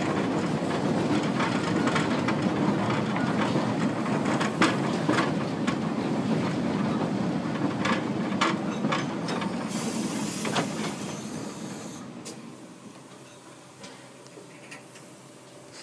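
Narrow-gauge steam train coaches rolling along the track, a steady running rumble with occasional sharp clicks from the wheels over the rail joints. A brief hiss of steam comes about ten seconds in, and then the running noise dies away.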